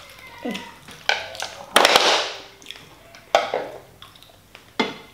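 Close-up eating sounds during a seafood meal: a handful of sharp cracks and crunches, the loudest about two seconds in.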